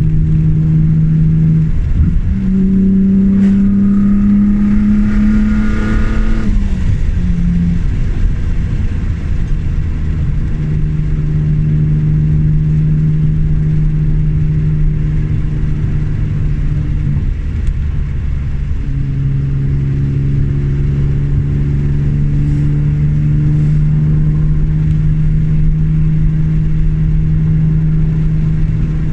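BMW E36 M3's straight-six engine driving on. From about two seconds in it pulls with rising pitch for four seconds, then drops away as the throttle is lifted or a gear is changed. After that it runs at a steady pitch, with a short change about two-thirds of the way through.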